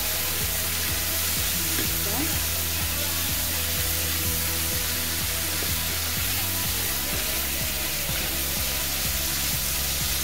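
Sliced vegetables sizzling in a nonstick frying pan as they are stirred with a wooden spatula, with the spatula scraping across the pan. Soft background music with sustained low notes plays underneath, shifting about seven seconds in.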